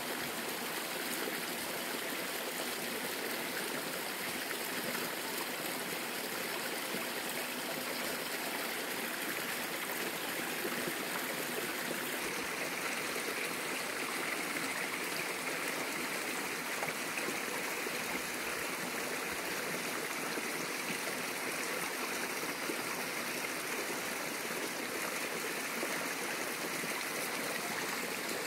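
Steady rush of running water from a forest stream, even and unbroken.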